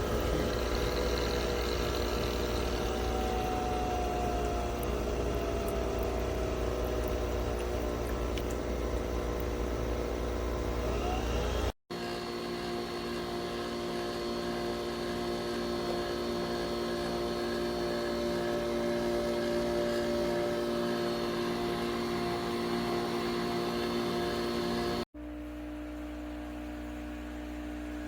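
Nespresso Vertuo Pop+ coffee machine brewing, a steady motor whir with a hum under it. The sound breaks off sharply twice and comes back at a slightly different pitch each time.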